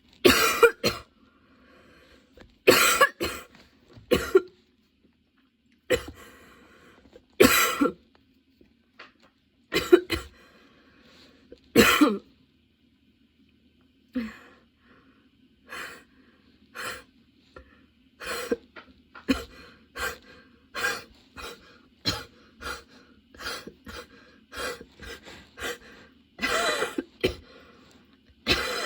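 A woman's prolonged, nonstop coughing fit. Heavy, harsh coughs come every second or two at first. About halfway through they turn into a quicker run of shorter coughs one after another, which grows louder again near the end.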